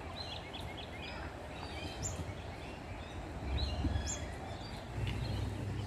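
Outdoor ambience with birds chirping in short, scattered calls, a quick run of them in the first second and more around the middle, over a steady low background rumble.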